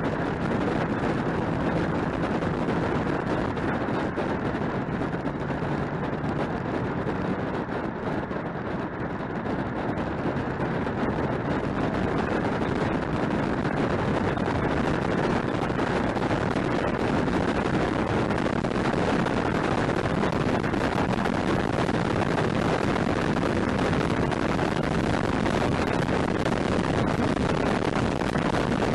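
Car tyre and road noise with wind rush, picked up close to a front wheel while driving, steady with a slight lull about eight to ten seconds in.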